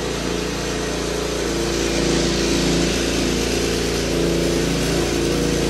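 An engine running steadily at an even speed, a little louder from about two seconds in.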